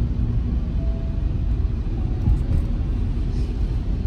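A car driving along, its engine and tyre noise making a steady low rumble.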